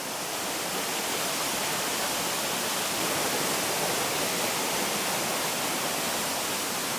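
Waterfall: a steady rush of falling water that rises a little in level in the first second.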